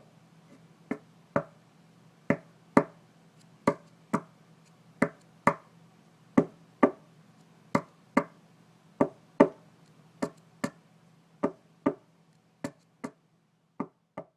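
Repeated knocking on a hard surface in double knocks, two sharp knocks about half a second apart, the pair repeating about every 1.3 seconds. The last few knocks are a little softer.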